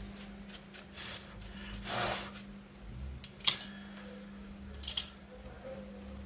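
A cleaning tool scrubbing dust off a laptop motherboard in short dry rubbing strokes, a longer stroke about 2 s in, with a sharp click about 3.5 s in and a lighter one near 5 s. A steady low hum runs underneath.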